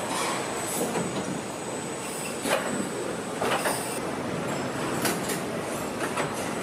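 Factory hall noise from a car body assembly line: a steady mechanical din with several short knocks and clanks, the sharpest about two and a half seconds in.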